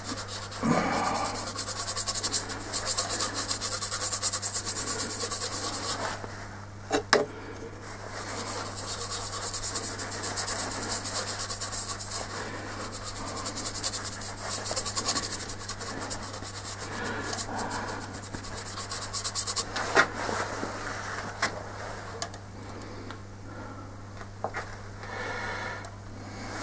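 A paintbrush scrubbing blue colour onto a wooden bowl: a scratchy rubbing hiss in long stretches of quick strokes with short pauses, easing off in the last few seconds, over a steady low hum.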